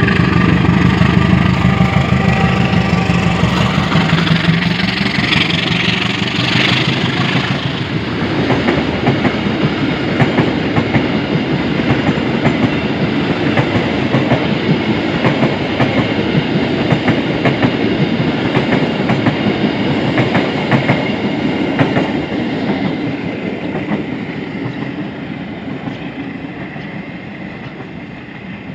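Diesel locomotive hauling a freight train passes close by, its engine drone loudest in the first few seconds. A long run of freight wagons follows, clattering steadily over the rail joints with a clickety-clack that fades toward the end as the train moves off.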